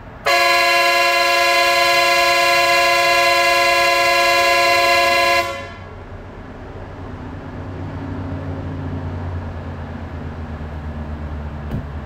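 Train horn sounding one long blast of about five seconds, a loud multi-note chord that starts suddenly and cuts off sharply. A low rumble rises afterwards.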